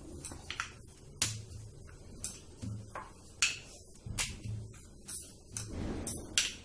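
Wooden rolling pin rolling out dough on a stone countertop: a dozen or so sharp, irregularly spaced clicks and knocks as the pin strikes the counter, with a softer rolling rub about six seconds in.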